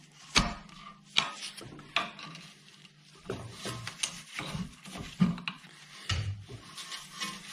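Flat-head screwdriver prying a Vauxhall Astra H rear brake caliper off its carrier, metal on metal: sharp clicks and knocks about a second apart at first, then scraping and dull thuds as the caliper shifts.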